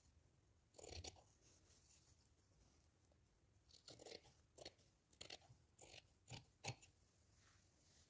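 Scissors cutting through cloth, faint: one cut about a second in, then a quick run of sharp snips in the second half.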